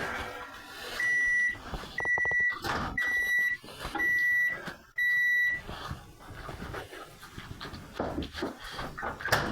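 An electronic appliance beeper sounding five times, about once a second, each beep a steady high tone about half a second long.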